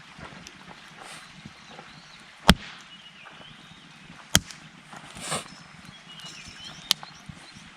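Wood campfire burning with a soft, steady crackle and three sharp pops as the wood bursts, the first the loudest, with a short hiss between the second and third.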